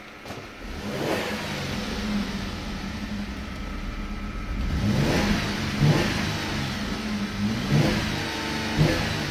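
A 2012 Holden Commodore's 3.0-litre V6 is started: a starter click, then the engine catches about a second in, flares up and settles to idle. From about halfway it is revved in several short throttle blips that rise and fall back to idle.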